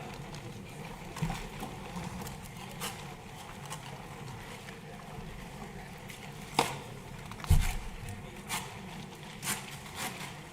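Steady low hum with a handful of sharp knocks and clicks, the loudest a low thump about seven and a half seconds in.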